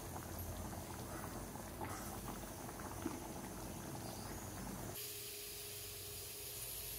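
Thick elephant-foot-yam kulambu simmering in a pan, bubbling and popping. About five seconds in this cuts to a steady hiss with a faint hum.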